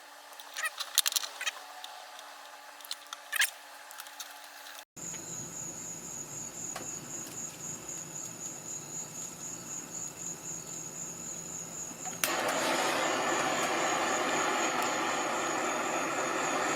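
Small clicks and handling knocks, then a steady high thin whine; about twelve seconds in, a propane torch is lit and burns with a sudden, steady rushing hiss.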